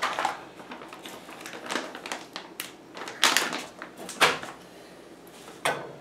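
Handling noises: a foil bag of oxalic acid crystals crinkling as it is closed and put back on the bench, then a sheet of paper being lifted. The sound comes as a string of short crinkles, rustles and light knocks about a second apart.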